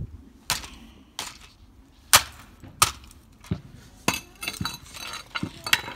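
Hard blows landing one after another on an RC car as it is smashed apart: about nine sharp whacks at an uneven pace, with broken bits clinking and clattering between the later blows.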